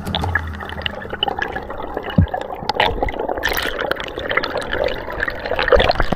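Underwater sound on a spearfishing dive: a steady wash of moving water with many short clicks and crackles scattered through it.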